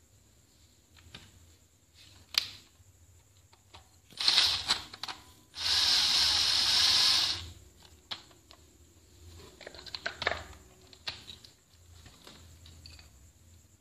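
Clicks and knocks of small hand-mixer parts being handled and fitted during reassembly, with a harsh hissing or scraping noise lasting about two seconds near the middle.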